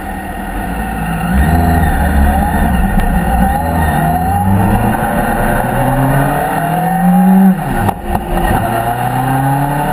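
Motorcycle engine heard from on board, idling and then pulling away about a second in, accelerating through the gears: the pitch climbs in steps, drops briefly at a gear change near the end, then climbs again.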